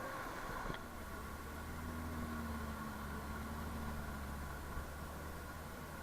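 A motor vehicle's engine idling steadily: a low, even hum that sets in just under a second in after a short click.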